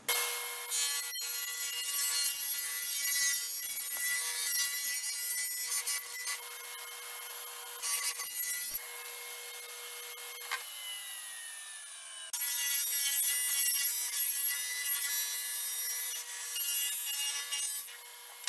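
Table saw cutting a shallow groove into the edge of 3/4-inch plywood, the blade singing steadily through the wood. About ten seconds in the pitch drops away, then the saw cuts loudly again from about twelve seconds in.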